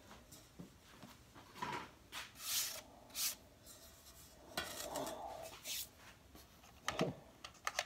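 Short scraping and rustling handling noises, then a stainless-steel bowl scraped and set down on a bamboo digital kitchen scale, with a sharp knock about seven seconds in and a few small clicks after it.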